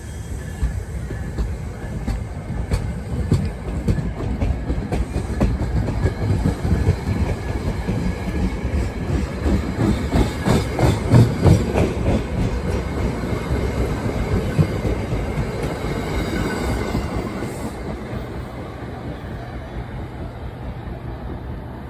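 NJ Transit passenger coaches passing at speed, a steady rumble with wheels clicking over the rail joints. It is loudest about halfway through and fades as the train pulls away.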